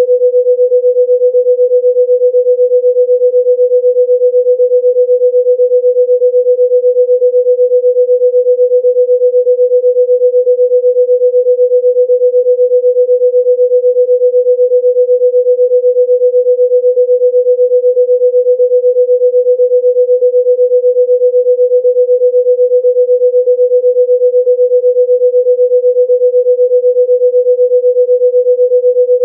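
A steady, pure electronic sine tone at about 500 Hz, held unchanging, played as a healing sound-therapy frequency.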